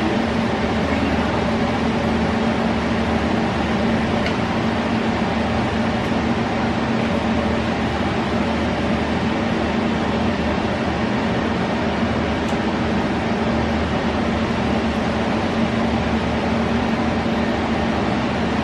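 Wall-mounted cellar cooling unit and its fan running with a steady hum.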